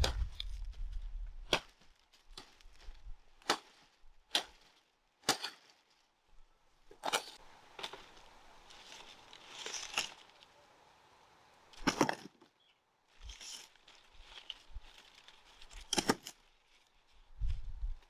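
A machete chopping sugarcane stalks and leaves: a run of sharp strikes about a second apart, then rustling of cane leaves with a few more single strikes and a dull knock near the end.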